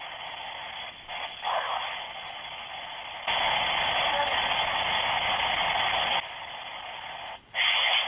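Spirit-box white noise and radio static, a steady hiss with no sound above a narrow band, as through a phone. There are short louder fragments about a second in, a louder stretch of hiss lasting about three seconds in the middle, and a brief loud burst near the end.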